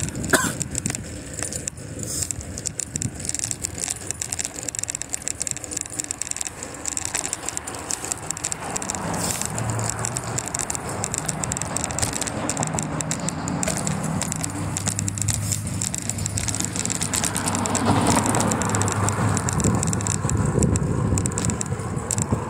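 Bicycle riding noise: the bike and its loose gear rattling and clicking over the pavement. A low steady hum joins in from about nine seconds, and the noise grows louder for a few seconds near the end.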